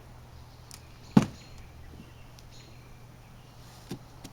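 A single loud thump about a second in, followed by a softer knock near the end, over a faint steady low hum.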